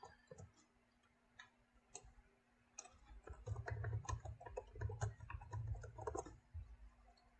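Computer keyboard keystrokes, faint: a few scattered taps, then a quick run of typing from about halfway through that stops shortly before the end.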